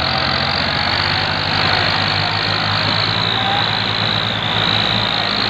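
Diesel farm tractor engine running steadily under load while pulling a heavily loaded trailer of grain sacks.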